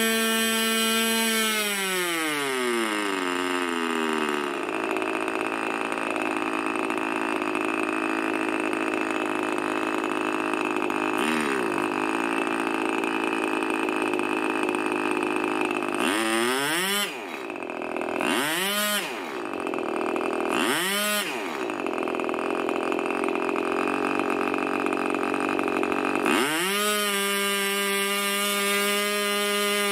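Irvine 25 two-stroke glow engine with a 9x6 propeller running on a test stand: at full throttle near 13,400 rpm, then throttled back over about three seconds to a steady idle near 3,300 rpm while its low-speed needle is tuned. Around the middle it is blipped up and back three times about two seconds apart, and a little before the end it is opened back up to full throttle.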